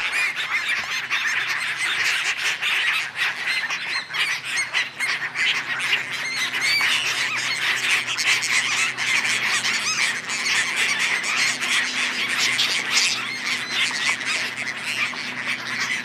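A large flock of gulls feeding on the water, calling over one another without a break: a dense, continuous chorus of many overlapping squawks and high cries.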